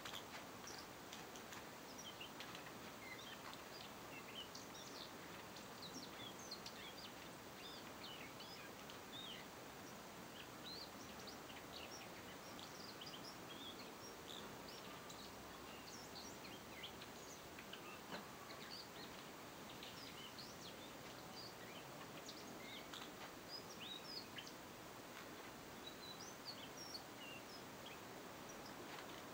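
Male Daurian redstart chattering softly: a long run of short, high chirps and ticks, faint over a steady background hiss.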